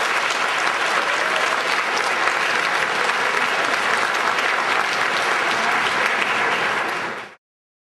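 Audience applauding steadily in an auditorium at the end of a lecture, the clapping cut off abruptly near the end.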